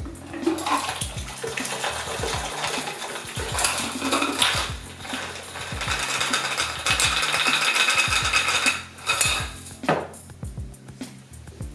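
Ice rattling hard inside a metal cobbler shaker as a cocktail is shaken, then the drink is poured out through the shaker's built-in strainer into a glass. Near the end the shaker is knocked down onto the wooden counter.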